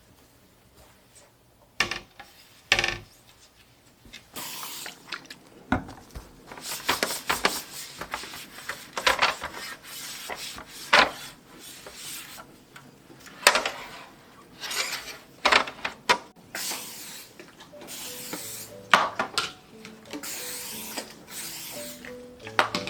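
Household cleaning sounds of a refrigerator being cleaned: repeated rubbing and scrubbing strokes mixed with sharp knocks and the clatter of dishes, containers and shelves being handled. Soft background music comes in near the end.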